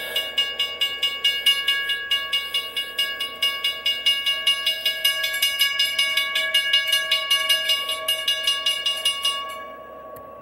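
Western-Cullen-Hayes (WCH) railroad crossing bell ringing in rapid, evenly spaced strokes, fading over the last second and cutting off, heard played back through a computer speaker.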